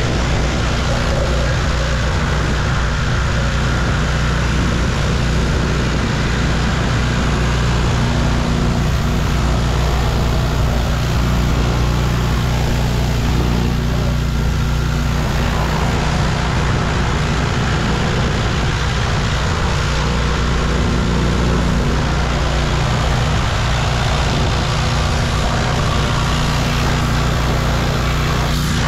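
Gas pressure washer's engine running steadily under load, with the hiss of its high-pressure water spray.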